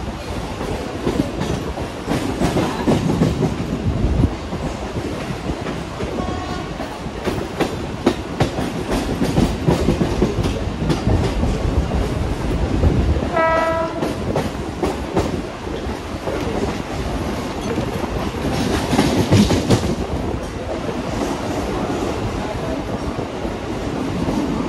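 Mumbai local train running on the rails, a steady rumble with rattling, clattering wheel clicks. A short horn note sounds about thirteen seconds in.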